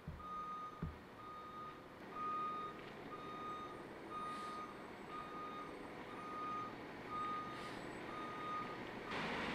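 Vehicle backup alarm beeping steadily at one pitch, nine half-second beeps about a second apart. There is a low thump just under a second in, and a rush of noise rises just before the end.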